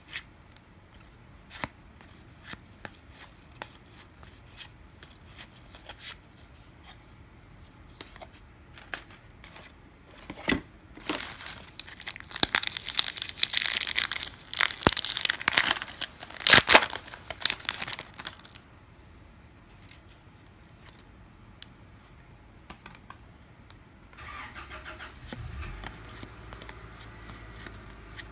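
Trading cards being handled with small taps and clicks, then a loud stretch of crinkling and tearing of a card pack's wrapper being opened. A low steady hum starts near the end.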